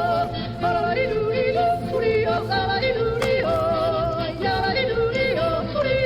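Music with a yodeling voice: sung notes with vibrato that flip quickly between low and high pitch, over a steady low accompaniment.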